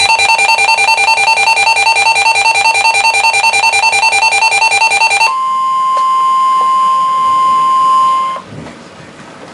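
A weather radio alarm sounding: rapid, loud pulsed beeping for about five seconds, then a steady single warning tone for about three seconds that cuts off abruptly. It signals an incoming National Weather Service warning broadcast, here a severe thunderstorm warning.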